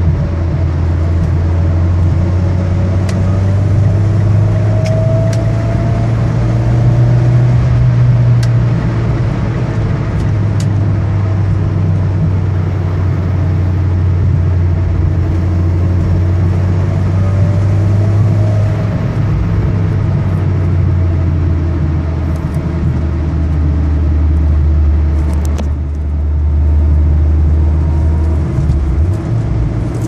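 Mitsubishi Lancer Evolution X's turbocharged four-cylinder pulling steadily at about 3,000 rpm, heard from inside the cabin, with a thin rising whine under acceleration separate from the turbo spool, loudest about five seconds in and returning now and then. The whine was diagnosed as a failing transfer case, the Evo X's "T-Case whine of death".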